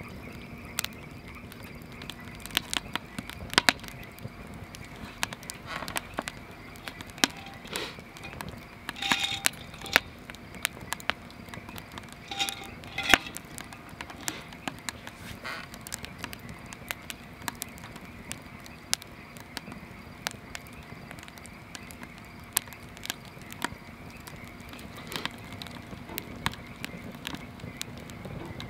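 Wood campfire burning in a steel fire pit, crackling with irregular sharp pops from the burning logs.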